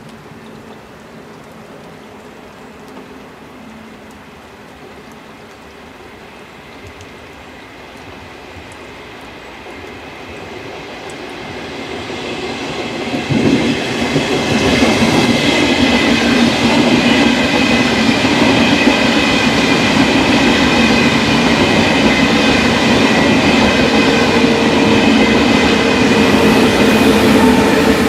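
ÖBB Railjet push-pull train, pushed uphill by a Siemens Taurus electric locomotive, approaching and passing: a quiet rainy background at first, then the train's running noise builds from about ten seconds in and stays loud and steady, with several steady humming tones over the rumble of the wheels.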